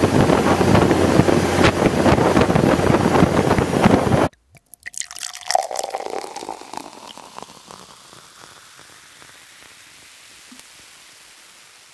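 Wind buffeting the microphone over the rush of water from a wooden runabout under way, cutting off abruptly about four seconds in. Then quieter dripping and splashing water that fades away.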